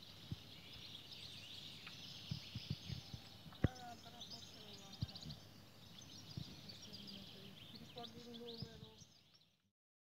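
Many birds singing together in woodland, a steady chorus of high chirps and twitters, with a few soft low knocks, the sharpest about three and a half seconds in. The sound fades out just before the end.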